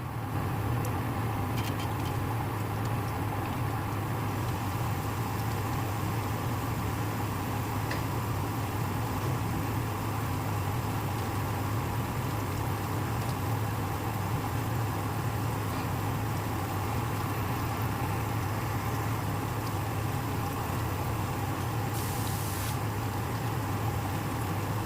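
Metal-working lathe running steadily with a constant low hum and a few steady higher tones. A short hiss cuts in briefly near the end.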